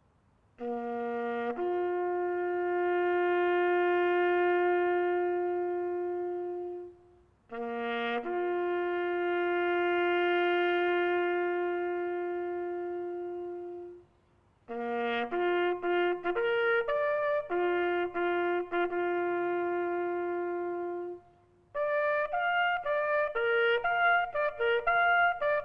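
Solo trumpet playing a slow memorial bugle call: two phrases, each a short low note rising to a long held note, then a phrase of quicker notes ending in another long hold, and quicker notes again near the end.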